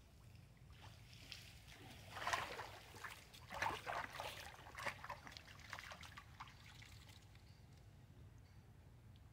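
Water splashing and sloshing as long-tailed macaques swim and scramble at the edge of a pool, with drips falling back into the water. There is a run of splashes from about two to seven seconds in, then only faint trickling.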